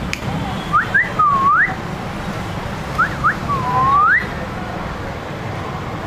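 Whistling: two quick rising notes followed by a longer swoop that dips and rises again, the phrase heard twice. A steady low rumble runs underneath.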